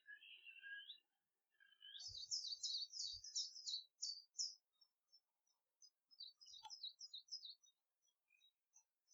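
Faint songbird song: a warbling phrase that ends in the first second, then a quick run of high, thin, repeated notes for about two and a half seconds. A shorter run follows a few seconds later, and scattered single high notes after that. Two soft low thumps come early and a sharp click near the middle.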